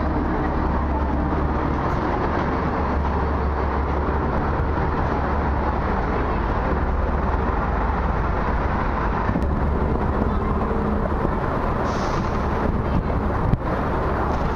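Steady rumbling noise from a camera carried on a moving bicycle: wind buffeting the microphone over street and traffic noise. A brief hiss comes about twelve seconds in, and a single knock follows shortly after.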